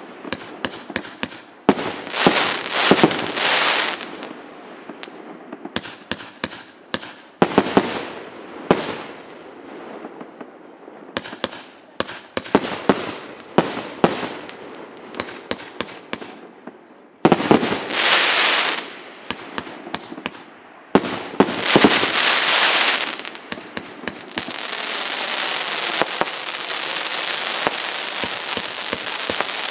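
Firework battery (cake) of 0.8- and 1.25-inch shots firing in volleys: clusters of sharp bangs with bursts of crackling between them. Near the end it turns to a dense, steady crackle of crackling crossettes.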